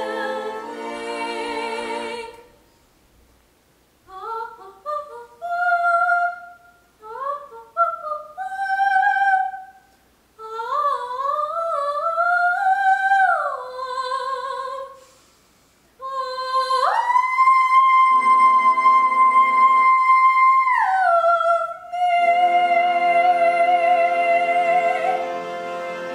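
A girl's solo soprano voice singing the closing cadenza of a song: the orchestral accompaniment fades out, she sings a string of short rising runs alone, then rises to a long held high note as the accompaniment comes back in under it, and steps down to a final held note over sustained orchestral chords.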